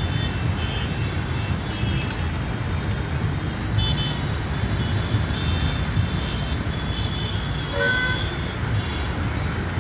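Road traffic: a steady rumble of vehicle engines, with short horn toots now and then, one of them about eight seconds in.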